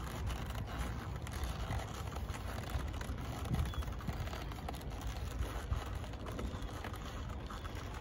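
Wind buffeting the microphone, with faint rubbing and handling of stiff saddle leather as a stirrup leather is pulled out from a western saddle.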